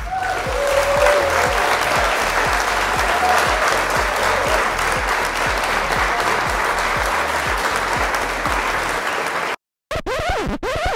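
Crowd applauding and cheering over music with a steady bass beat. It cuts off suddenly about nine and a half seconds in, followed by brief sweeping tones of a transition effect.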